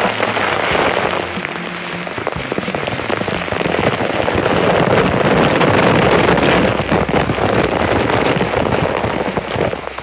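Waterfall close up: a dense, loud rush of falling water, with spray and drops spattering directly onto the camera. It swells louder about halfway through.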